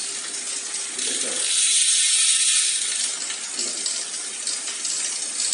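Road bike chain turning by hand-cranked pedals and rubbing against the front derailleur cage: a continuous metallic jingling scrape ('cetring-cetring'), loudest about two seconds in. The rub comes from the chain running too close to the front derailleur, which the left shifter's half-step trim is meant to cure.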